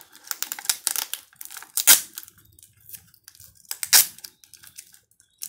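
Clear sticky tape pulled off its roll in short rips as it is wound around a paper-wrapped stem, with the paper crinkling under the hands. The two loudest rips come about two and four seconds in.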